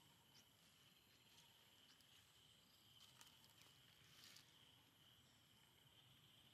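Near silence with a faint, steady, high insect drone, and a few faint clicks around the middle.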